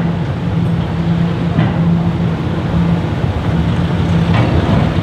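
Steady low engine drone from a berthed car ferry and the vans driving off its bow ramp onto the linkspan. Two brief noisy rushes come about one and a half and four and a half seconds in.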